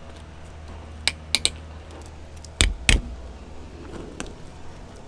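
Kitchen scissors snipping and crunching through the hard, armour-like scaled skin of a Florida gar: about six sharp, irregular snips, the two loudest a little past halfway.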